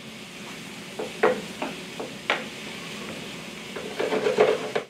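Mushrooms frying in butter in a skillet on a hot plate, sizzling softly while a wooden spoon stirs them, knocking against the pan a few times.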